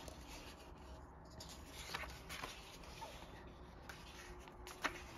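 Faint rustling of paper pages being turned in a small colouring book, with a short light tap about five seconds in.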